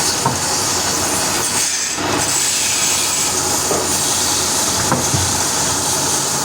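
Woodworking machinery running steadily while cutting wood, a loud continuous hiss and rumble with a few light clicks.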